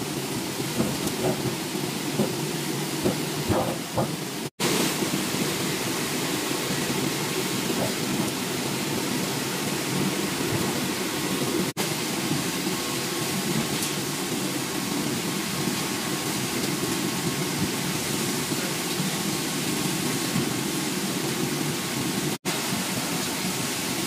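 Industrial corn washing machine running: a steady rushing of water spray and air blowers over the mesh conveyor carrying the corn cobs. A few light knocks come in the first few seconds, and the sound cuts out for an instant three times.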